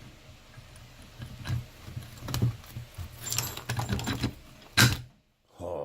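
Steel parts clinking and knocking irregularly as a shop-made lathe milling attachment is worked into place for a test fit, with one sharper knock near the end.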